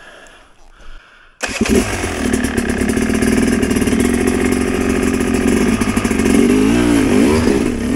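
Enduro dirt bike engine starting about a second and a half in, catching at once and running steadily, with the revs rising and falling a few times near the end.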